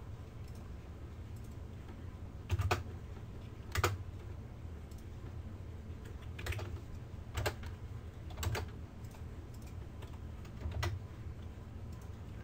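Computer keyboard keystrokes and mouse clicks, about six separate clicks spaced a second or more apart, over a low steady hum.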